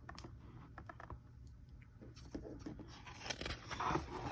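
Pages of a picture book being handled and turned: faint rustles, scrapes and small clicks, with the rustling louder near the end.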